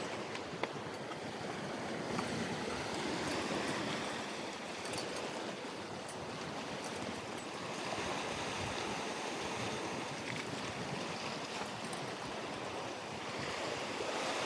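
Sea waves washing against shore rocks, a steady rushing wash with wind buffeting the microphone, broken by a couple of faint clicks early on.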